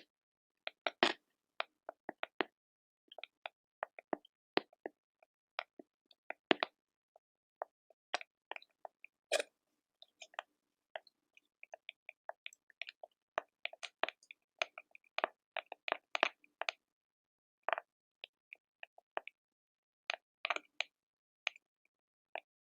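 Quiet ASMR crackles: dozens of short, irregular snaps and clicks, some in quick clusters, with brief silent gaps between them.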